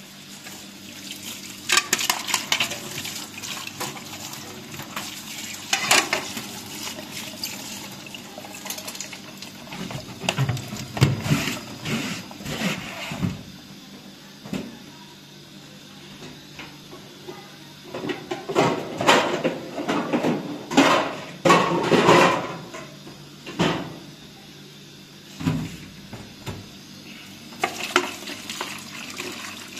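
Intermittent clattering and knocking, with stretches of splashing, water-like noise. The clatter comes in clusters, busiest and loudest in the second half, over a faint steady low hum.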